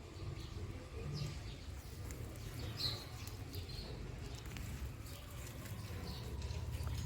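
Quiet open-air background with a steady low rumble and a few faint bird chirps, two of them close together about three seconds in.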